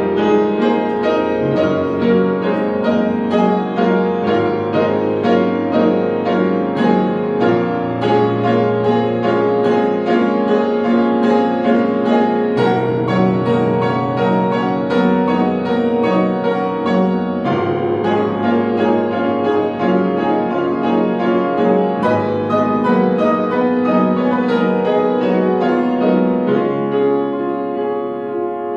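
Grand piano playing an improvised passage of many quick notes over held low bass notes, easing off a little near the end.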